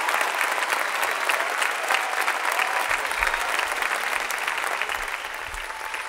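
Large audience applauding: dense, steady clapping that slowly eases off.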